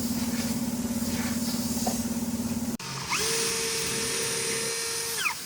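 An electric power tool's motor running steadily with a fast, even pulsing. After an abrupt cut, a higher-pitched motor spins up, runs steadily for about two seconds and winds down near the end.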